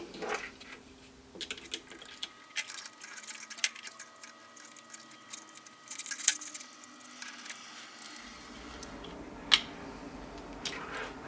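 Small clicks, taps and scrapes of hand wiring work: a wire being fitted into a screw terminal block and a screwdriver working the terminal screw, with a few sharper clicks.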